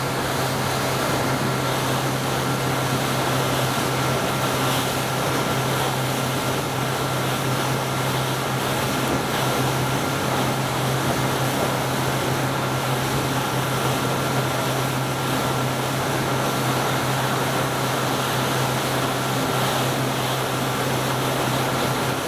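A steady low machine hum with a faint high whine, under an even hiss, holding the same level throughout.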